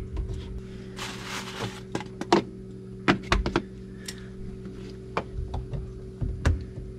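Plastic drain plumbing being handled under a sink: scattered clicks and knocks of PVC tailpiece, P-trap and slip-nut parts, with a brief rustle about a second in, over a steady low hum.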